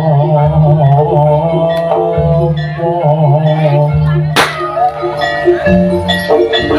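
Loud Javanese jaranan gamelan music: mallet-struck metal percussion playing repeated notes over a held low note, with a wavering melody line on top. A single sharp crash about four and a half seconds in.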